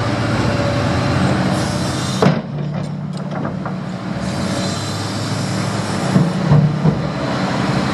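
Diesel engines of heavy construction machinery running steadily, with a single sharp knock about two seconds in.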